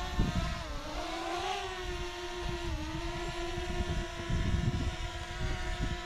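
Small quadcopter drone's propellers whining in a steady hum with many overtones. The pitch dips about a second in and again near three seconds, then climbs back as the throttle changes. Wind rumbles on the microphone underneath.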